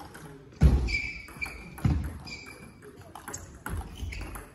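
Table tennis rally: the celluloid ball ticking off bats and table about twice a second, with two heavy thuds early on from the players' feet on the hall floor.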